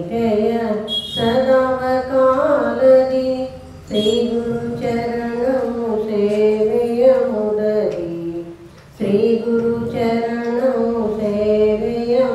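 A woman singing a devotional song solo into a microphone: three long, slow phrases of held, wavering notes, with short breaks for breath about four and about eight and a half seconds in.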